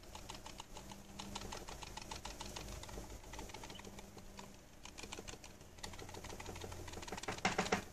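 Logitech G303 mouse being shaken, its loose optical lens under the sensor rattling inside the shell in rapid small clicks, the sign of a lens that is not held down properly. A louder clatter near the end.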